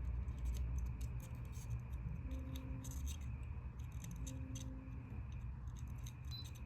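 Small metal clicks and scrapes of tweezers and a soldering iron tip working a phone's charging port loose from the board during desoldering, over a steady low hum, with two brief low tones about two seconds apart.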